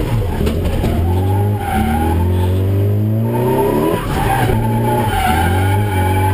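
Nissan S13 drift car heard from inside the cabin: the engine drones steadily under load while the tyres squeal in long, wavering stretches as the car slides sideways.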